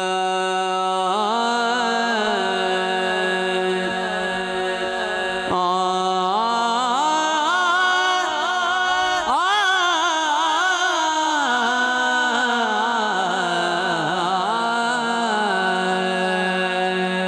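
A man singing a devotional naat into a microphone, drawing out long, wavering notes that slide in pitch. He breaks off briefly a few times and climbs sharply to a higher note about nine seconds in.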